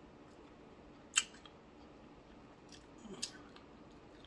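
Quiet sounds of a person eating by hand from a plate, with two sharp clicks about two seconds apart.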